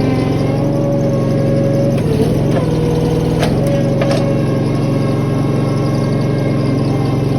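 Toro skid steer's engine running steadily with a hydraulic whine, its pitch sagging briefly about two seconds in as the hydraulic log grab takes load. Two sharp cracks a little after three and four seconds in.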